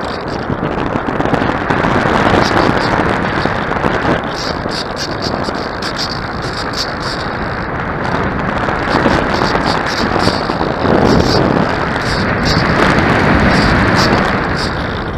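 Wind blowing hard across the microphone, a loud rushing buffet with a steady crackle of small clicks over it.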